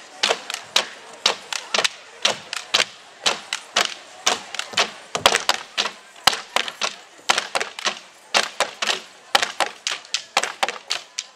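Wooden dance sticks clacking in a fast, uneven rhythm of sharp knocks, several a second.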